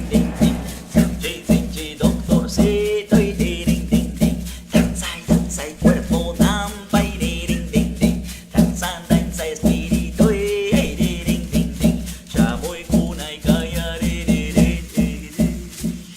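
Music: a singing voice over a fast steady beat of drums and shaken percussion.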